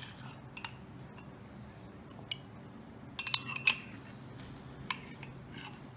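Scattered light clinks and taps of a utensil against plastic serving glasses, with a quick cluster of taps a little past halfway, as soaked basil seeds are added to the milk.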